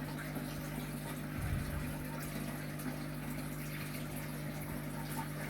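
A steady low hum with a faint hiss, and a soft bump about one and a half seconds in.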